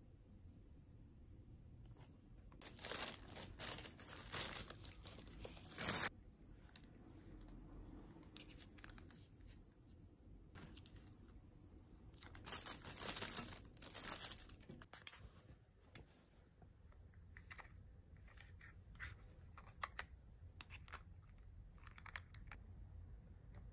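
Small plastic packaging being torn open and crinkled in two bouts, followed by scattered light clicks as the unwrapped items are handled.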